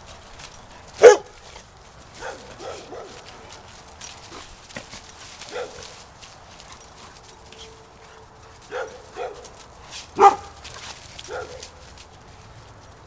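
Dogs barking and yelping in rough play. There are two loud barks, one about a second in and one just after ten seconds, with smaller yips between them and a short whine.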